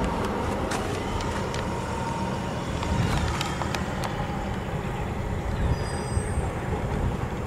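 Steady low outdoor rumble with a few light clicks about a second in and again three to four seconds in.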